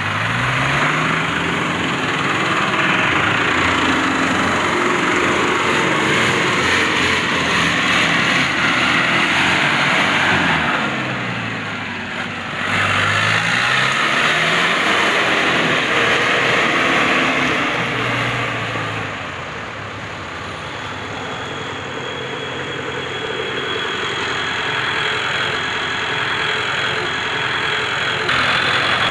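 Diesel engines of a Landini four-wheel-drive tractor and a dump truck working in deep mud, revving up and down again and again. About two thirds of the way through the sound drops to a quieter, steadier running.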